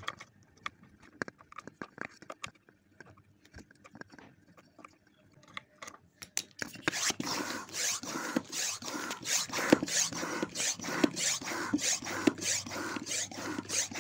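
Hand bicycle pump being worked at about two strokes a second, each stroke a rasping rush of air, forcing air through a clogged steam iron's steam passages. The pumping starts about six and a half seconds in, after a few faint handling clicks.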